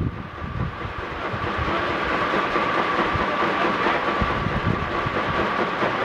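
Pair of 20 and 28 horsepower Minneapolis steam traction engines running in tandem, belted to a sawmill and working steadily under load, with a steady whine running through the din.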